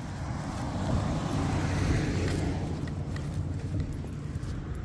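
A car passing by, its noise swelling to its loudest about two seconds in and then fading, over a steady low traffic rumble.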